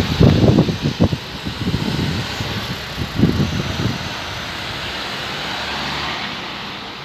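Diesel engine of a Mercedes Actros recycling truck running as the truck pulls away, a steady hum. Irregular low buffets of wind or handling on the microphone come over it in the first second or so and again about three seconds in.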